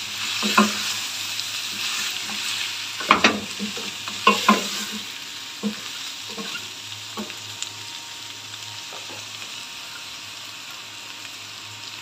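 Mutton, onions and whole spices sizzling in oil in a stainless-steel pot while a wooden spatula stirs them, knocking against the pot several times in the first half. The sizzle grows gradually quieter.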